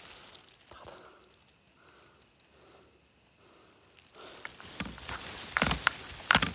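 Faint insect chirring for the first few seconds, then, from about four seconds in, footsteps and rustling through wet grass and shallow paddy water with several sharp clicks.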